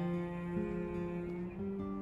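Acoustic guitar playing slow, held chords that change about every half second, the instrumental lead-in to a sung ballad.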